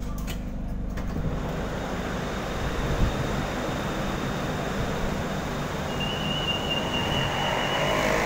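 BTS Skytrain standing at an elevated station platform: a steady rushing hum of the train and platform, with a high electronic beep lasting about a second near the end.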